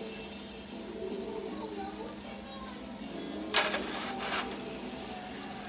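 Butter and grease sizzling in a hot frying pan, a steady low hiss over a constant low hum, with a short sharper burst of noise about three and a half seconds in.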